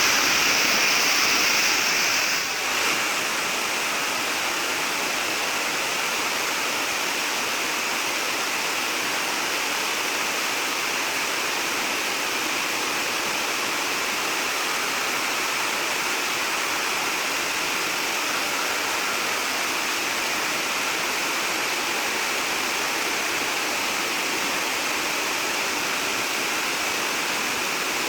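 Water rushing steadily, a little louder for the first couple of seconds.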